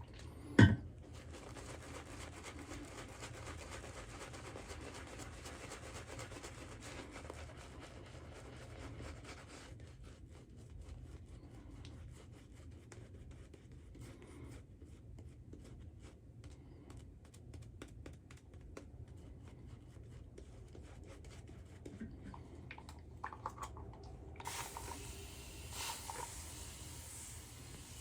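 Straight razor scraping through lathered stubble in short scratchy strokes, the cutting heard as a fine rasp and rapid crackle. A single knock sounds about half a second in.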